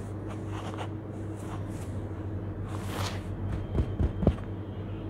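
Hands crumbling and sifting a crumbly charcoal-and-sand mix with small white stones in a plastic tub, giving soft gritty rustles, then a few dull thumps about four seconds in as the palms pat down on the surface. A steady low hum runs underneath.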